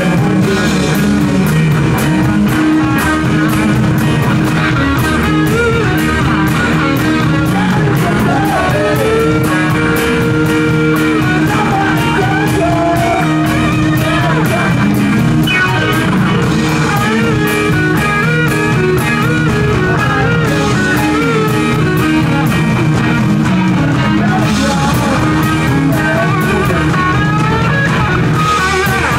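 Live classic-rock band playing: electric guitar, bass, drum kit and keyboard, with a lead vocalist singing at times.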